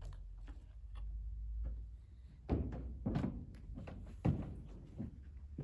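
Footsteps: a man walking away, heard as a run of dull thuds about half a second to a second apart, the heaviest a little past the middle.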